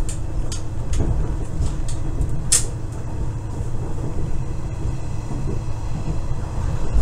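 KiHa 110 series diesel railcar running along the line, heard from inside its rear cab: a steady low rumble of engine and wheels on rail, with several short sharp high clicks in the first half, the loudest about two and a half seconds in.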